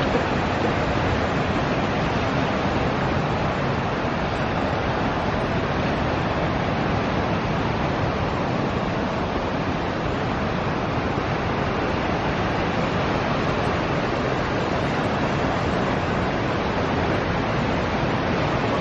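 Ocean surf breaking along a rocky shore, a steady even wash of noise with no single wave standing out.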